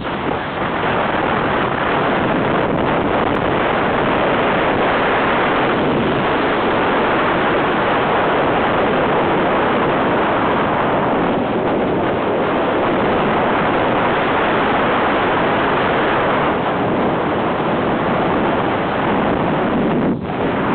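Steady, loud rush of airflow buffeting the microphone of a camera on a hang glider in flight, with a brief dip near the end.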